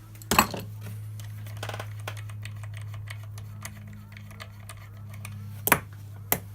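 Hand ratchet clicking in runs as the chainsaw's bar nuts are loosened, with a few louder metal knocks. A steady low hum runs underneath.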